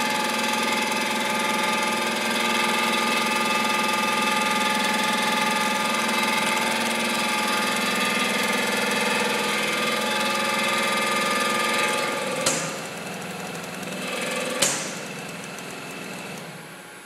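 TIP TIG (hot-wire TIG) welding on a heat exchanger tube-to-tubesheet joint: a steady buzz with many held tones from the arc and the fed filler wire. About twelve seconds in it turns quieter, with two sharp cracks about two seconds apart.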